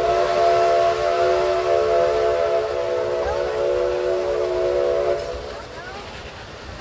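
Whistle of a Lima-built Shay narrow-gauge steam locomotive blowing a long, steady blast of several notes at once, cutting off about five seconds in. The train keeps running underneath with a steady rumble.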